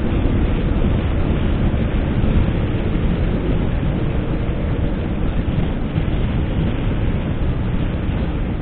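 Suzuki Hayabusa inline-four motorcycle under way: a steady, dense rumble of wind buffeting the microphone, mixed with engine and road noise, with no distinct engine note standing out.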